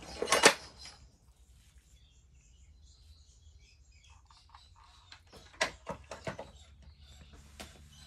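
Mistral ceiling fan running with a faint low hum. Sharp clicks and knocks cut in: a loud one at the start, a quick cluster about six seconds in and one more near the end. Faint bird chirps come through in between.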